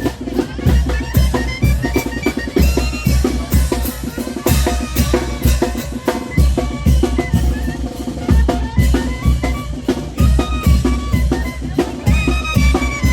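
A band playing a son de chinelo: bass drum and snare keep a steady, driving beat under a pitched melody line.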